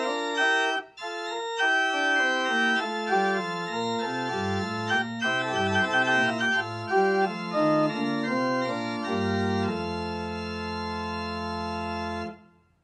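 Two-manual electronic church organ playing slow sustained chords with a deep pedal line, ending on a long held final chord that is released just before the end.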